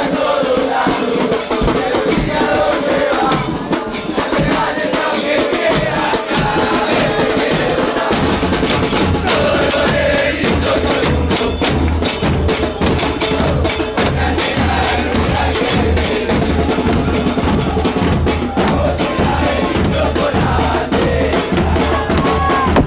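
A large crowd of football supporters chanting together over drums, with sharp drum strikes throughout. Deep bass drums start pounding steadily about a third of the way in.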